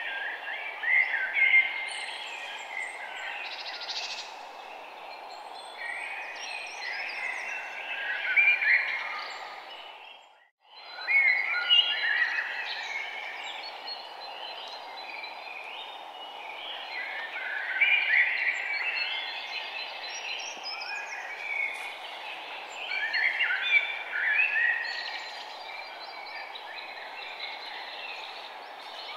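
Many small birds chirping and singing over a steady background hiss, a birdsong ambience that fades out completely and back in about ten seconds in.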